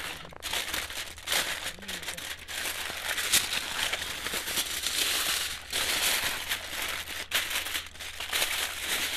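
Aluminium foil crinkling and crackling as it is wrapped, folded and pressed by hand around a whole stuffed chicken, with one sharper crackle a few seconds in.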